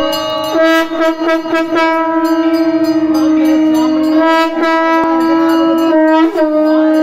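Conch shell (sankhu) blown in one long, steady horn-like note, the pitch wavering briefly about half a second in and again near the end. Quick repeated strikes, as of a ringing bell, sound faintly behind it.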